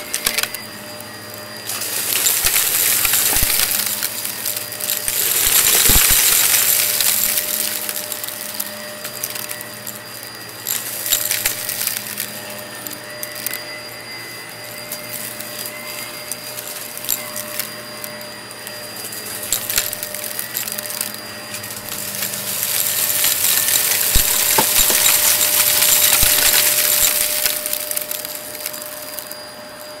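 Shark Navigator upright vacuum running with a steady motor whine while its rug tool sucks up small hard debris from a shaggy rug. The bits rattle and crunch up the hose in two long, louder stretches, one starting about two seconds in and another from about twenty-two seconds.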